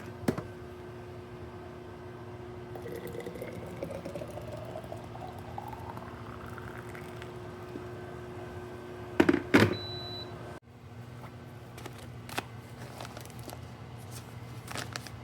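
Water being poured into a vessel, the pitch of the stream rising steadily as the vessel fills, over a constant electrical hum. A couple of sharp knocks come about nine seconds in.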